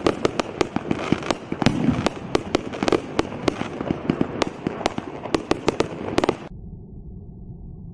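Super Strobe firework rocket's burst of strobe stars: many sharp, irregular pops over a hiss, several a second. They stop abruptly about six and a half seconds in, leaving a faint low steady noise.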